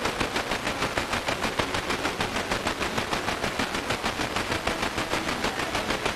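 Sony XDR-F1HD FM tuner tuned to 106.6 MHz, putting out a fast, even pulsing of noise, many pulses a second, rather than speech or music.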